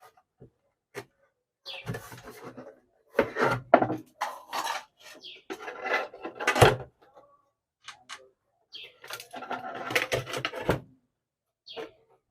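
Scraping, rubbing and clicking inside an opened electric hot plate as burnt debris is cleaned out of its housing, in irregular bursts with short knocks between.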